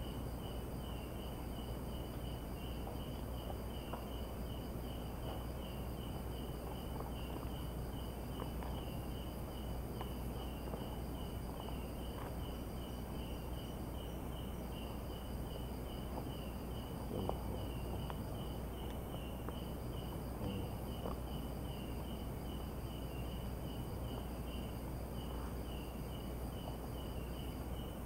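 Crickets and other night insects chirping steadily in the dark: one pulsing at about two chirps a second, another keeping up a higher continuous trill that stops briefly now and then, over a faint high steady whine and a low even hiss.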